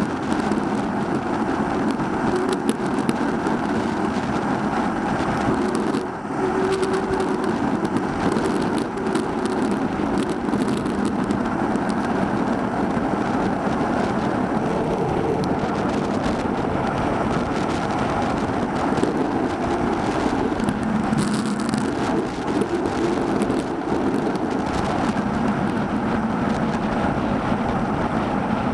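Steady rush of tyre and wind noise from a road bike riding along, picked up by a bike-mounted camera. The noise dips briefly about six seconds in.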